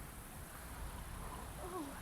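Quiet outdoor background hum with a brief faint voice near the end.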